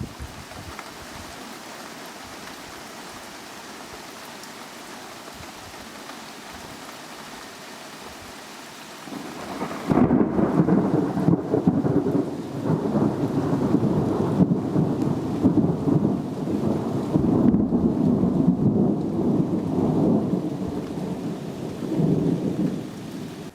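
Steady rain hiss, then about ten seconds in a long, loud roll of thunder that rumbles with repeated swells for more than ten seconds before breaking off suddenly.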